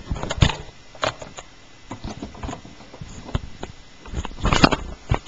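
Small plastic toy figures handled and tapped on a hard surface: scattered light clicks and knocks, with a quick cluster of them near the end.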